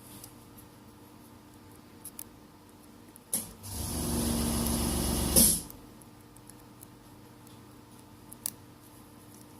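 A short blast of blown air, about two seconds long, starting with a click about three seconds in and cutting off with another click, blowing dust off the phone's camera area during cleaning. A few small handling ticks come before and after.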